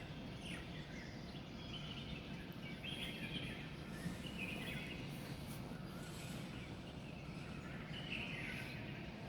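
Wild birds chirping in short high phrases, one every second or so, over a steady low background hum.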